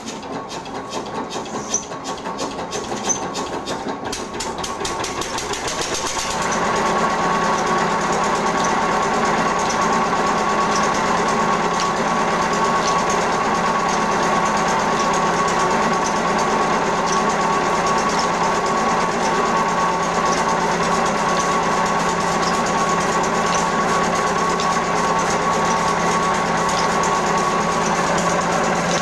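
Single-cylinder stationary diesel engine picking up speed, its even firing beats getting faster and louder over the first few seconds with a couple of sharp knocks. It then settles into a steady run, driving a belt-driven chaff cutter.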